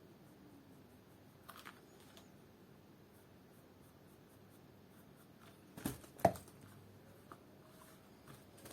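Quiet handling noise of hand work on a shoe at a workbench, with a brief scrape about one and a half seconds in and two sharp knocks close together about six seconds in.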